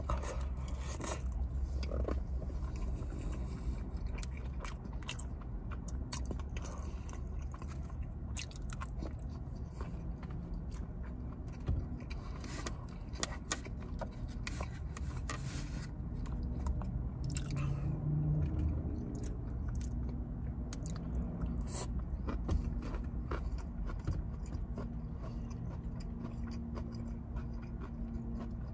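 Close-up chewing and biting of orange chicken, with many short wet mouth clicks and now and then chopsticks scraping the foam takeout tray, over a low steady hum.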